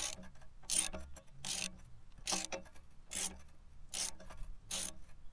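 Socket ratchet being swung back and forth on a wheel nut, drawing a new extended wheel stud through the hub against a stack of washers so it seats flush. Short ratchet clatters repeat about every 0.8 s, seven in all.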